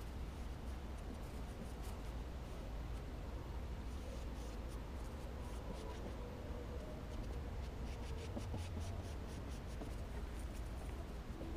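Vinyl wrap film being smoothed onto a car door by hand: light, scratchy rubbing strokes that come in clusters, over a low steady rumble.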